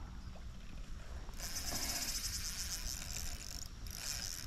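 Fishing reel ratcheting in a fast run of fine clicks while a hooked chinook salmon pulls on the line, starting about a second and a half in, breaking off briefly and picking up again near the end.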